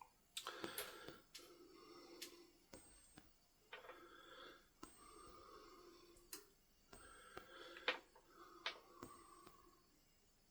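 Faint breathing with a slight wheeze, about six breaths, with a few small clicks between them.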